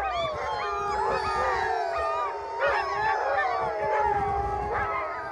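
A chorus of sled dogs howling together, many overlapping howls at different pitches rising, falling and wavering.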